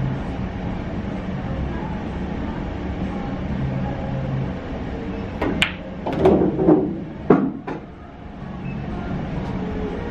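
Pool balls clacking on a billiard table: a cue tip striking the cue ball and balls knocking together, a handful of sharp clicks a little past halfway through. A steady low room hum runs underneath.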